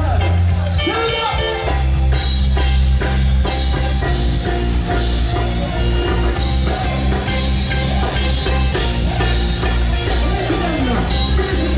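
Band music with a drum kit and a steady, heavy bass line.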